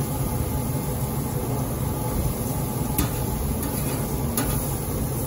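Steady low hum of a Weber SmokeFire pellet grill running, with two faint clicks of metal tongs against the grill grates about three seconds and four and a half seconds in as bacon strips are laid down.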